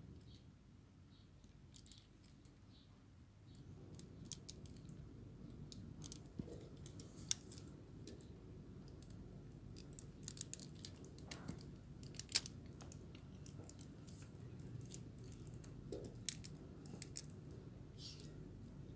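Light, irregular plastic clicks and snaps as a Transformers Masterpiece MP-39 Sunstreaker figure is handled and transformed, its parts clicking into place, with a few sharper snaps among them.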